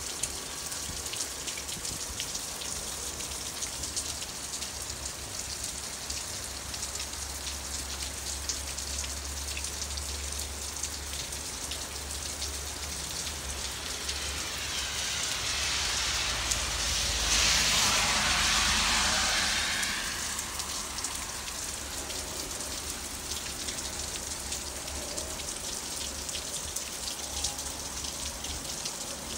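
Steady rain falling, with fine ticks of drops hitting close by. About halfway through, a louder hiss swells up over a few seconds, holds briefly and fades away.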